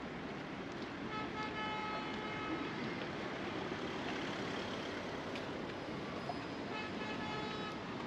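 Road traffic on a street, with a vehicle horn sounding twice at a steady pitch: a longer honk of about a second and a half starting about a second in, and a shorter one near the end.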